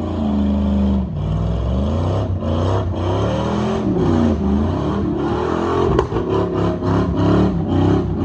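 Car engine revving up and down over and over, its pitch rising and falling every second or so.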